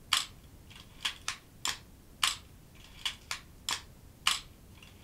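A 35mm SLR camera's mechanism being worked by hand, giving about ten sharp mechanical clicks at uneven spacing, some in quick pairs.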